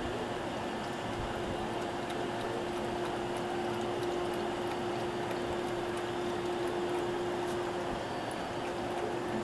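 Steady hiss with a constant low hum, and faint scattered clicks from a puppy feeding at a stainless steel bowl.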